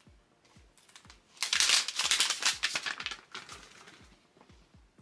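Crinkling plastic film wrapper being torn and pulled off a toy capsule, loudest for about two seconds in the middle, over background music with a steady low beat.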